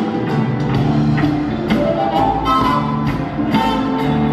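Live band playing an instrumental passage: a drum kit keeps a steady beat under electric and acoustic guitars and bass. A trumpet and trombone carry sustained melody notes from about halfway through.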